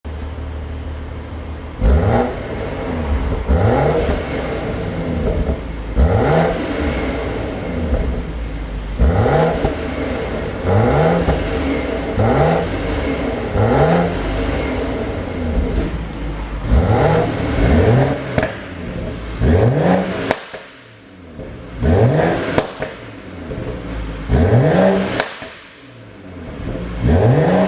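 BMW G30's engine revved in about a dozen short throttle blips, each a quick rise in revs that falls away. The exhaust pops and crackles as the revs drop, from a tune made to produce overrun pops.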